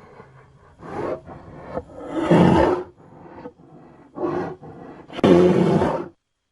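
Monster creature roar sound effect: a series of growls and roars, the two loudest about two seconds in and about five seconds in, cutting off suddenly about six seconds in.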